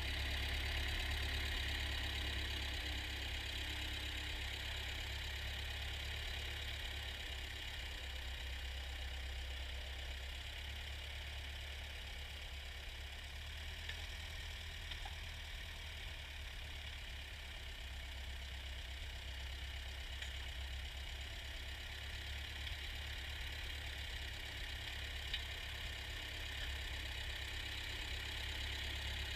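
Ford farm tractor engine running steadily while turning over sod, fading a little mid-way and coming back up.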